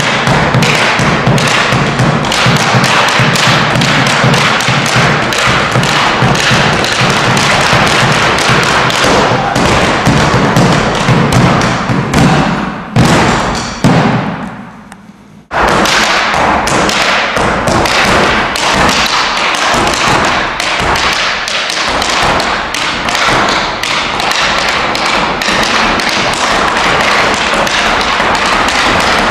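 Fast, dense percussion from a large rope-tensioned bass drum beaten with sticks, mixed with rapid taps and thuds from a dancer's stamping footwork. About halfway through, two sharp hits a second apart ring out and fade into a brief gap, then the fast striking starts again suddenly.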